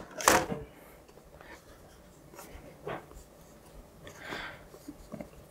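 Rigid cardboard gift box being handled: a loud brush just after the start, then faint scuffs and scrapes of fingers and cardboard, with a short rasp of the snug lid rubbing about four seconds in.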